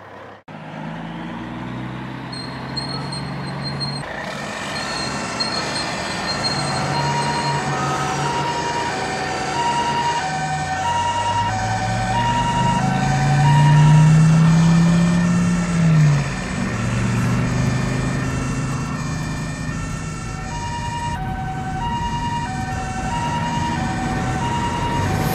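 Two-tone hi-lo emergency siren, a high and a low note alternating evenly, over a low vehicle engine sound that swells and falls away about halfway through.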